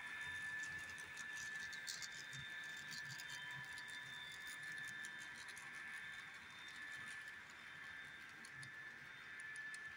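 Model freight train running past on layout track: a steady high whine from the model locomotives' motors, with quick irregular light clicking of the wheels over rail joints and switches.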